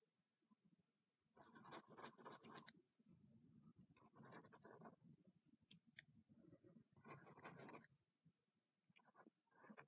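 Pen scratching on notebook paper in short spells of drawing strokes, faint, four bursts with pauses between them.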